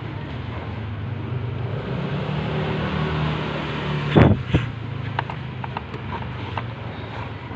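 A motor vehicle engine drones steadily, growing louder through the middle. Two sharp knocks come a little past halfway, followed by light clicks and taps of hands and a rag working around the plastic body panel and coolant reserve tank.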